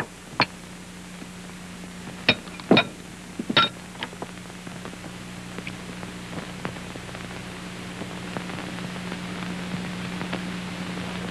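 Kitchen utensils and dishes clinking and knocking a few times in the first four seconds, then only a steady low hum and hiss that grows slightly louder.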